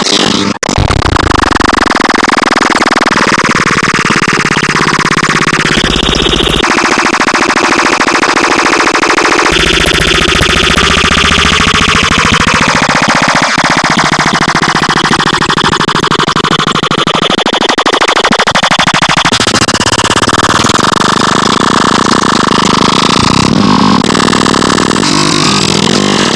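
Dense 'dark MIDI' synthesized music, a packed wall of many notes sounding at once, with sweeping runs up and down in pitch.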